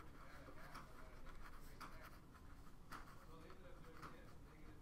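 Marker pen writing on a sheet of paper: faint, quick scratching strokes, under faint background voices.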